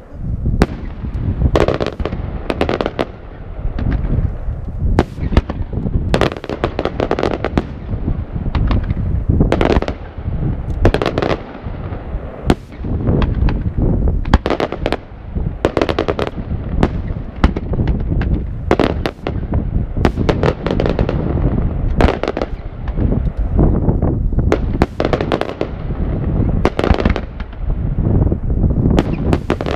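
Aerial firework shells bursting in a rapid, unbroken series of sharp bangs, often several a second, with a low rumble filling the gaps between them.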